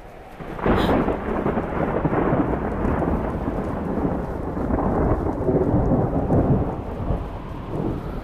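Thunder: a sudden crack about a second in, then a long rolling rumble that dies down near the end.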